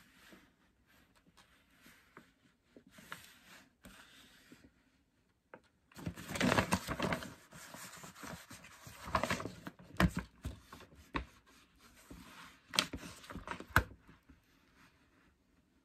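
Small Tulip craft iron rubbing and pressing over kraft paper to bond heat-transfer vinyl to cotton fabric, with the paper crinkling as it is handled. Faint rubbing at first, then louder irregular scraping and rustling from about six seconds in, with a few sharp clicks.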